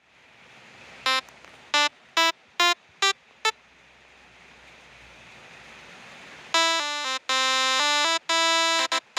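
Six-note 'telolet basuri' multi-trumpet bus air horn driven by a PGO airhorn module. It gives six short blasts at different pitches over a steady hiss, then about two-thirds of the way in breaks into a long run of notes playing a tune.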